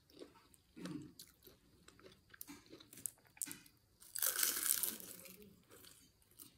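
Biting into a deep-fried dynamite lumpia, a chili pepper wrapped in a spring-roll wrapper: the crisp wrapper gives a loud crunch lasting nearly a second, about four seconds in. Before it there are quieter chewing and mouth sounds.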